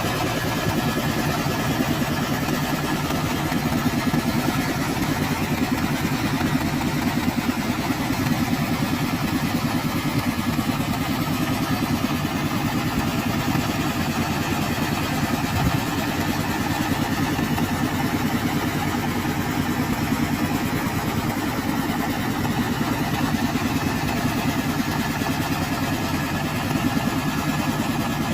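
The 22 HP diesel engine of a portable hydraulic water well drilling rig running steadily under drilling load, with a brief knock about halfway through.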